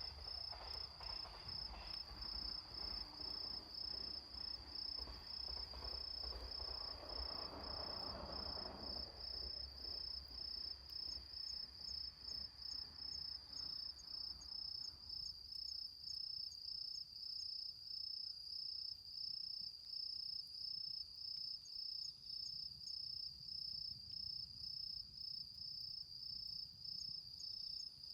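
An autumn cricket calling in a steady, high-pitched trill that pulses in a regular rhythm throughout. Under it, a soft rustling noise and a low rumble fade out about halfway through.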